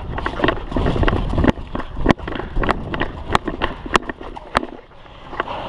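Hurried footsteps on concrete with clothing and gear rustling. Sharp footfalls land about every half second from a second and a half in and thin out near the end.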